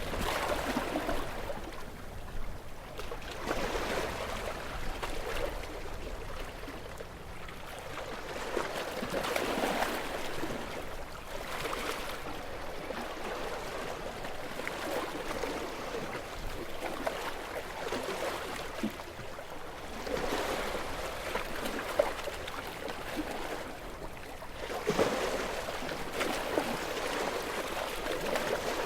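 Gentle waves washing onto a beach, each small wave swelling and fizzing out every few seconds, with a brief crackle about two-thirds of the way through.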